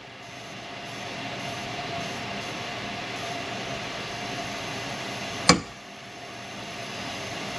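One sharp metallic hammer blow on a steel center punch against a broken exhaust stud in a Ford FE cylinder head, about five and a half seconds in. It marks the stud's center before drilling it out. A steady mechanical hum runs underneath.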